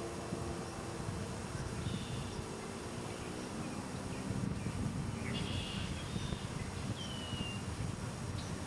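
Mallard ducklings peeping faintly a few times in short high calls, the last one sliding down in pitch, over a steady low outdoor rumble.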